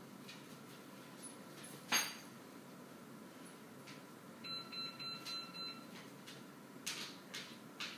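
A quick run of about six short electronic beeps around the middle, from an unseen device. A sharp click comes about two seconds in, and a few light taps near the end from a dog's claws on a hardwood floor.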